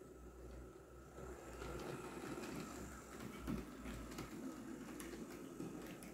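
H0e narrow-gauge model diesel locomotive and its flat wagons running along the track. There is a faint steady motor whine over a low rumble of wheels on rail, with scattered light clicks.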